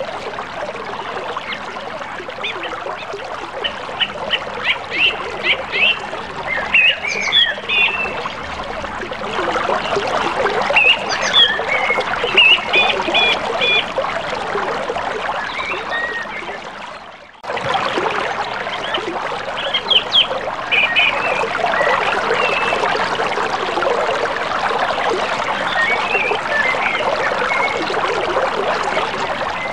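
Steady rush of river water running over shallow rocky riffles, with birds chirping in short bursts over it. The sound fades down about halfway through and comes back suddenly.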